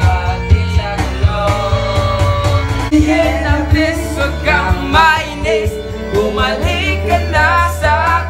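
Karaoke: young men singing into a handheld microphone over a loud backing track with a steady bass beat, the voice coming through the room's speakers.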